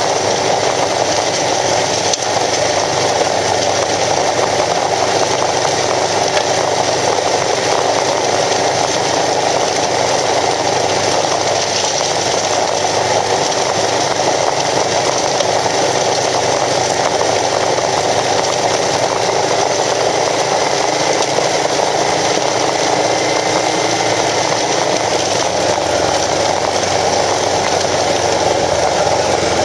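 Kawasaki KLR650's single-cylinder engine running steadily while riding on gravel, mixed with steady wind and road noise over the camera.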